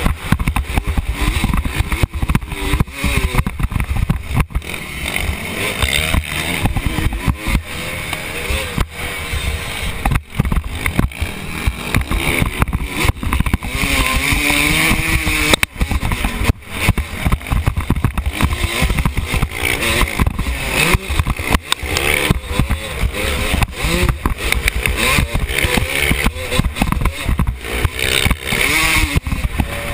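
Motocross bike engine revving up and down as it races over a rough track. It is heard through a loosely attached helmet camera that rattles and knocks constantly, half burying the engine.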